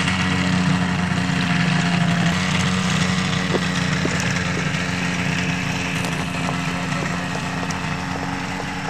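Small piston engine of a home-built ultralight airplane running as it taxis, a steady propeller drone that slowly fades as the plane moves away.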